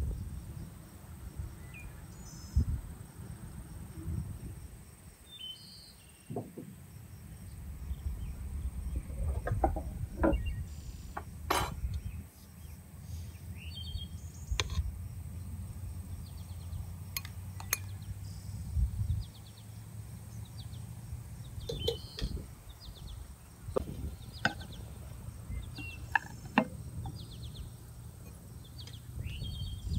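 Scattered short bird calls over a low rumble, with a few sharp clinks of a metal skimmer against a cooking pot and a china bowl as rice is served.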